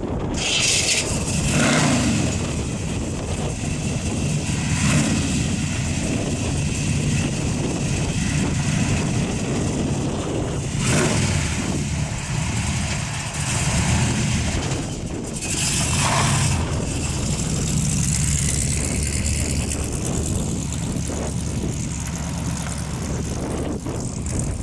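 The 1969 Chevelle SS396's 396 big-block V8 running through its dual exhaust as the car is driven, its pitch rising and falling, with gusts of wind on the microphone.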